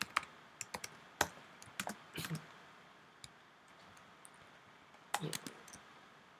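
Scattered computer keyboard keystrokes and clicks, irregular and in two short clusters: a run in the first couple of seconds and a few more about five seconds in.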